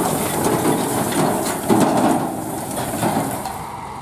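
Eicher tractor running in a harvested wheat field, its engine noise mixed with irregular clattering; the sound drops off near the end.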